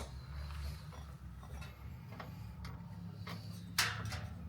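A few scattered light clicks and knocks from hand tools and hardware being handled, the sharpest at the very start and the loudest near the end, over a steady low hum.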